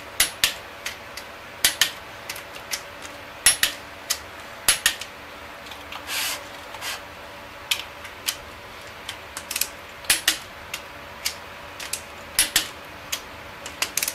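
Click-type torque wrench on the rod bolts of a Chevy 454 big-block: sharp metal clicks in irregular pairs and clusters as each bolt is rechecked. The clicks are the wrench letting go at its set torque, about 50 lb-ft. A steady low hum runs underneath, and there is a short scraping rasp about six seconds in.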